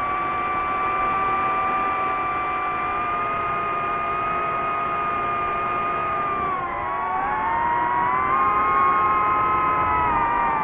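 Multirotor drone's propellers whining: several steady pitched tones together, which dip and then rise again about seven seconds in as the motors change speed.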